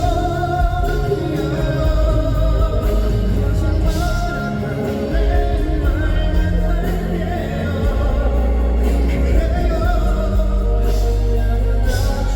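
Amplified live pop ballad: a male vocal sings over backing music with a heavy bass.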